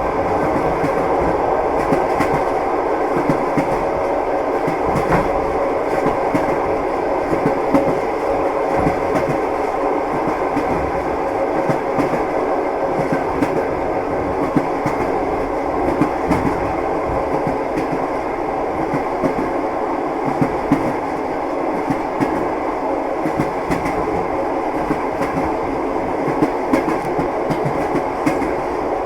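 Train wheels clattering over the rails: a steady rumble of a moving train with many short, irregular knocks.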